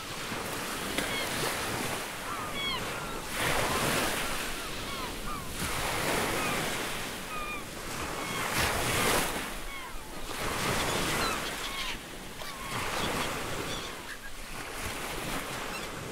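Ocean surf washing against a shoreline in repeated surges about every two seconds, with many short chirping bird calls over it.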